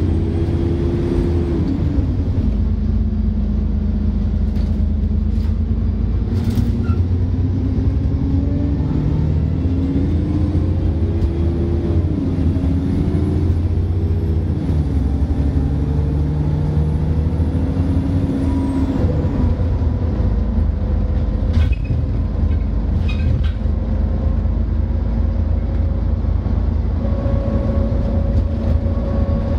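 Alexander Dennis E40D double-decker bus with a ZF automatic gearbox, heard from inside: the engine revs up and its pitch drops back at each gear change several times. Later a steady whine climbs slowly with road speed; this is the loud differential whine heard at speed. There are a few short rattles near the end.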